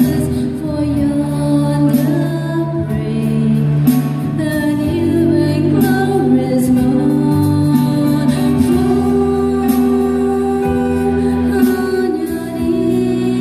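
A small group of carol singers singing in harmony, a woman's voice leading into a microphone, over electronic keyboard accompaniment.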